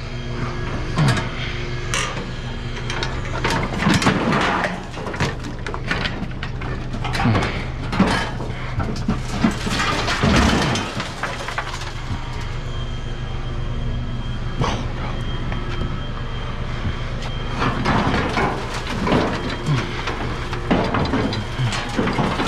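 Irregular knocks, rattles and scrapes of a load of scrap being shifted and roped down on a pickup truck bed, over a steady low hum.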